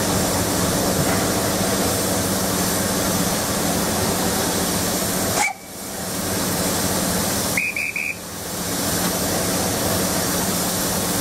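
Hastings Class 202 DEMU's diesel engine running steadily with a loud hiss and low hum. A railway staff whistle sounds once, about five and a half seconds in, then again as three quick high pips about two seconds later: the signal for the train to depart.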